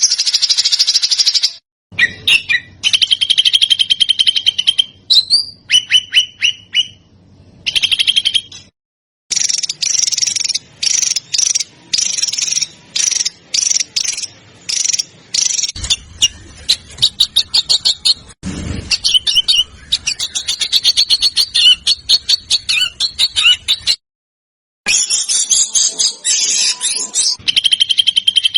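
Small songbirds singing in a spliced sequence: fast, dense runs of high chips and trills with some clear whistled notes, broken by several abrupt cuts to silence. This is masteran, tutor song with rapid-fire phrases for teaching competition songbirds to copy.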